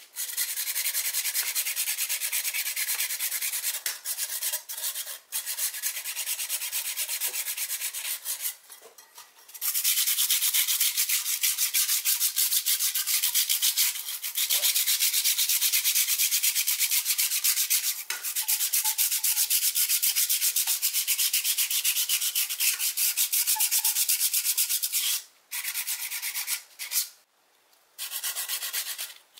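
Sandpaper rubbed by hand in fast back-and-forth strokes on the rusty steel frame of a loudspeaker, scrubbing off the rust: a scratchy hiss in spells, stopping briefly several times.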